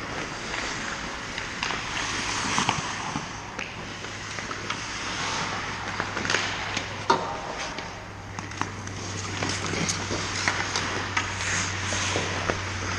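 Hockey skates scraping and carving on rink ice, with scattered sharp clacks of sticks and puck, the sharpest about seven seconds in, over a steady low hum.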